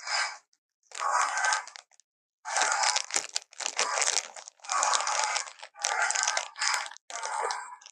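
A run of noisy, rasping dinosaur roar sound effects: about seven short bursts, each under a second, with brief gaps between them.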